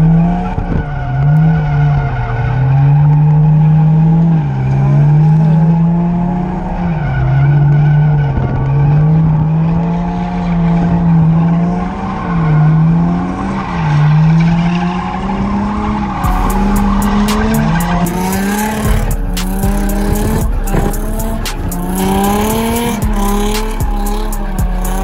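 Drift car's engine heard from inside the cabin, revving up and dropping back over and over, about once every one to two seconds, with tyres squealing as the car slides. About two-thirds of the way in, the sound changes to another car drifting past, its engine revving amid tyre squeal and sharp clicks.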